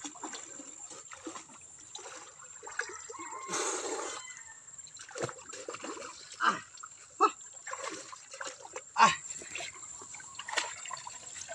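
Water splashing and sloshing as a person swims and wades through shallow muddy water: a longer rush of water a few seconds in, then several short, sharper splashes.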